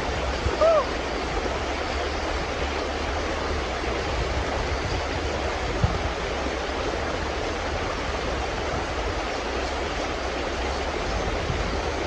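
Fast mountain stream rushing over rocks: a steady, loud rush of water. A short high whine rises and falls about half a second in, and a single sharp click comes near the middle.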